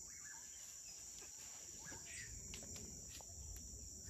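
Faint, steady high-pitched chirring of insects, with a few faint ticks about halfway through.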